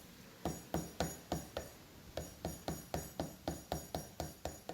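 Wood chisel being struck with light taps, about four a second with a short pause partway through, each tap sharp and ringing briefly. The chisel is paring a molding corner down to its layout line in small fine-tuning cuts.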